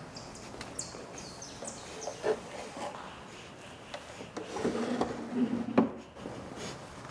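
Hands handling a glass bottle and a cloth at an old wooden drawer: light knocks of glass and wood and rubbing of cloth. There are a few short high squeaks in the first couple of seconds, and a denser bout of handling ending in a knock near the end.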